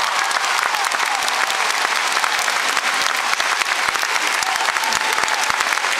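Large audience applauding steadily, a dense wash of many overlapping hand claps.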